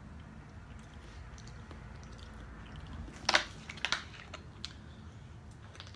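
Faint chewing and small mouth clicks, then a short burst of sharp crackles about three seconds in as a thin plastic water bottle is picked up and handled.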